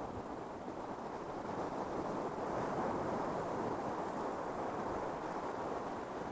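Ocean surf washing onto a sandy beach, a steady rushing that swells to its loudest about halfway through and then eases slightly.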